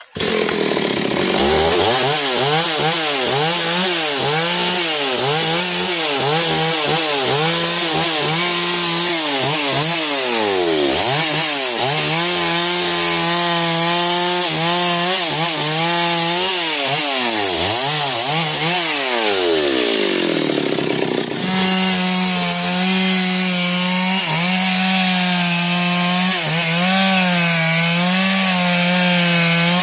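Stihl two-stroke chainsaw cutting through a felled manglid log, its engine pitch rising and falling over and over as the throttle is worked and the chain bites into the wood. About two-thirds of the way in it settles into a steadier, high-revving run with only slight wavering.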